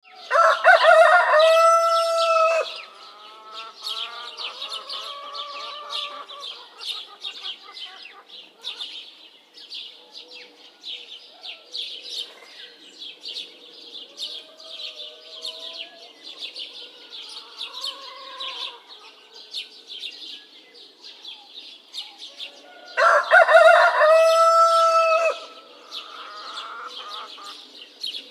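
A rooster crowing loudly twice, at the start and again about 23 seconds in, each crow lasting about two and a half seconds. Between the crows, small birds chirp steadily and hens cluck softly: a village dawn chorus.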